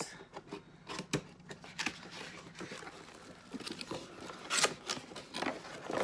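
Cardboard box being opened and its contents handled: irregular scraping, rustling and sharp clicks of the flaps and packing, louder near the end.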